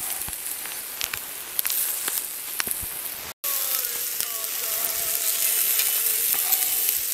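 Lamb chops and meat patties sizzling on a wire grate over charcoal, a steady hiss with small crackles of fat.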